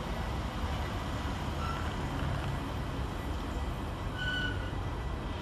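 Container wagons of a freight train rolling past on the track, a steady low rumble of wheels on rail. Brief high squeals come about a second and a half in and again near the end.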